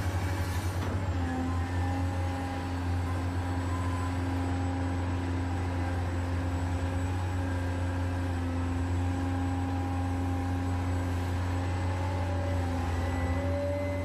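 Huina 1580 RC excavator running as it works its bucket: a steady low drone with higher whining tones from its electric motors that shift in pitch now and then.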